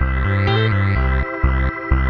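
Background music: synthesizer with a steady, pulsing bass line.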